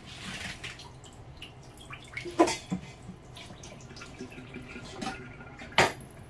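Rinse water draining and trickling in a kitchen sink, with light clinks of stainless steel bowls being handled. Two sharp knocks, about two and a half seconds in and again near the end, are the loudest sounds: bowls set down on the cutting board.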